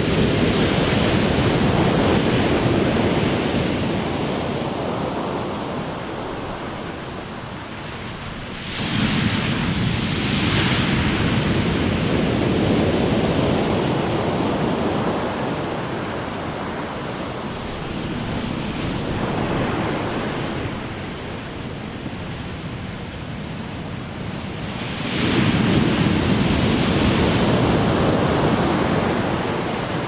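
Big ocean waves crashing on the shore. The surf is at full rush at the start, then a wave breaks suddenly about nine seconds in and another about twenty-five seconds in, each swelling to a loud roar of surf and slowly draining away.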